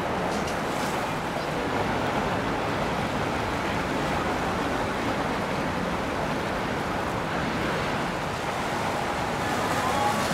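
Steady rush of water and wind noise on the microphone, with a faint low engine hum from boat traffic.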